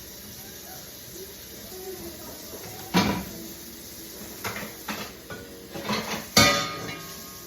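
Dishes clattering as they are handled and stacked, over a steady background noise. There is a sharp clatter about three seconds in, then a run of knocks and clinks, the loudest near the end.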